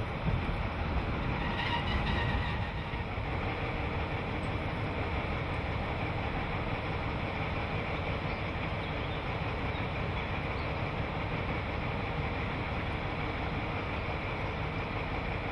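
Diesel engine of a Deutsche Reichsbahn class 112 (V100) locomotive, a twelve-cylinder diesel with hydraulic transmission, running steadily.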